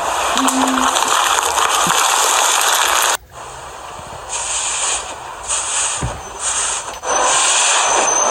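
Slime being squeezed and worked by hand, a loud crackling hiss. It cuts off suddenly about three seconds in, returns in three short bursts, then runs steady again near the end.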